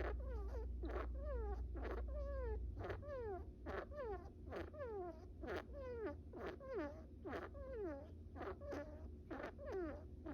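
Pet brown rat snoring in its sleep: a steady run of tiny squeaky snores, about two a second, each a quick sniff followed by a short squeak that falls in pitch.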